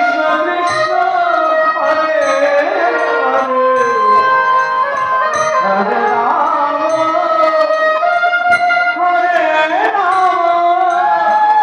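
Violin playing a devotional kirtan melody of held notes with slides between them, over light percussion.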